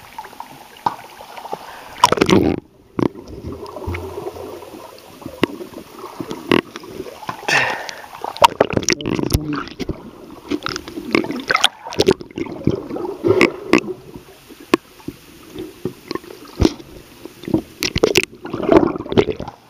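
Pool water sloshing, gurgling and splashing around a waterproof camera held at and under the surface, muffled, with irregular knocks and a loud splash about two seconds in.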